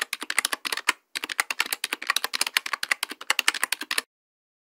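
Keyboard typing sound effect: rapid key clicks with a brief pause about a second in, stopping abruptly about four seconds in as the typed-on title text is complete.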